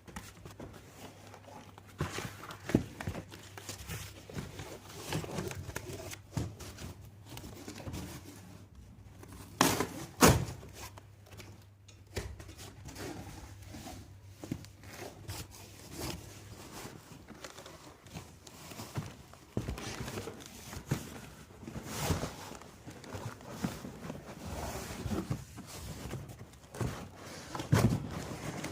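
Packing noises from a cardboard carton: scattered knocks and thuds with crinkling and rustling, the loudest knock about a third of the way in.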